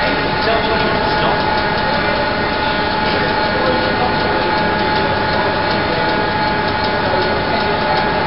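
Loud, steady machinery noise with a constant high whine over a dense rumble.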